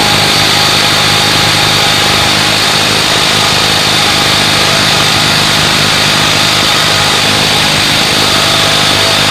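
Electric impact wrench hammering steadily on a tight car lug nut in one long unbroken run.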